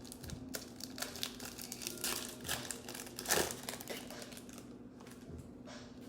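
Plastic trading-card pack wrapper crinkling as it is handled and torn open, in a run of irregular crackles with the loudest crinkle about three and a half seconds in.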